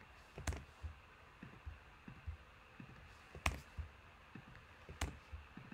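Faint, scattered keystrokes and clicks of a computer keyboard and mouse, with a few sharper clicks standing out about half a second in, midway through and near the end.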